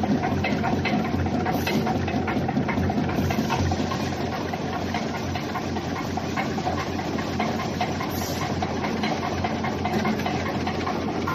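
Wire basket-making machine running: a steady mechanical hum with a quick run of clicks and ticks, which thin out after about four seconds.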